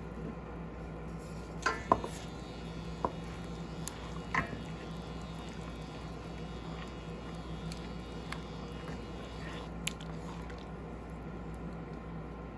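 Adobo sauce boiling in a covered pan as it reduces, with a few sharp clicks of cookware, the loudest about two seconds in.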